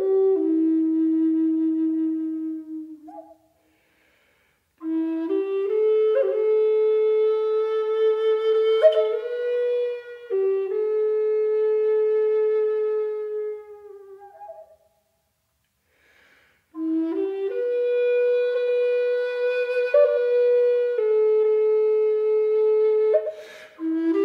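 Solo flute music playing slow, held notes in three phrases, with two short silences between them.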